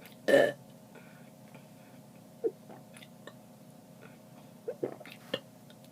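A person's short burp about half a second in, then a few brief gulping clicks from the mouth and throat while she swallows air to bring up the next burp.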